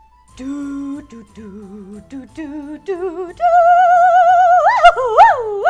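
A woman's voice singing with a wavering vibrato: a run of notes climbing step by step, then a long held high note about halfway in, then a series of swooping up-and-down notes near the end.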